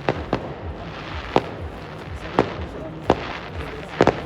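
Fireworks display: about seven sharp, separate bangs of exploding shells at uneven intervals, two in quick succession near the end, over a steady background of noise.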